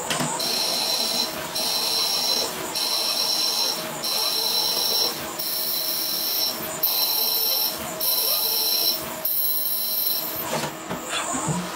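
CNC lathe cutting a spinning metal workpiece under coolant, with a high-pitched cutting whine that comes in about eight stretches of roughly a second each, broken by short gaps, over the machine's steady running.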